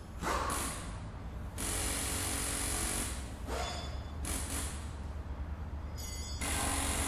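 A power tool running steadily with a low hum and a hiss, the sound changing abruptly several times as between short edited clips.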